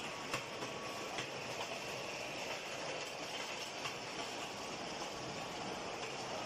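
Steel grinding-ball forging line running: a steady mechanical noise from the rolling machinery and conveyors, with a few faint clicks in the first second or so.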